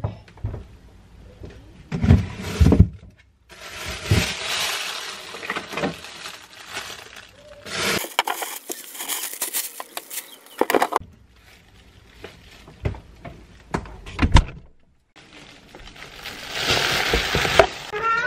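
Kitchen handling sounds at the refrigerator: knocks and clinks of jars and containers and rustling of a plastic bag of greens, in several short stretches that start and stop abruptly.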